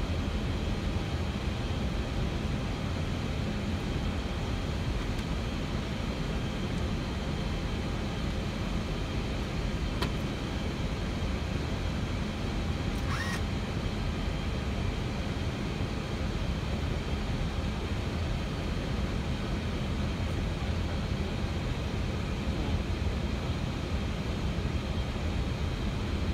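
Steady cockpit noise on an Airbus A320 flight deck during descent: a constant rush of airflow and air-conditioning, with a low hum underneath. A brief click about ten seconds in and a short chirp a few seconds later.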